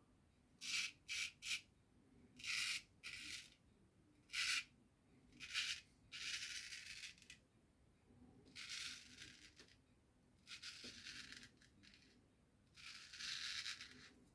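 Razor scraping through lathered stubble in short strokes, about ten in all, with brief pauses between them: the first pass of a wet shave.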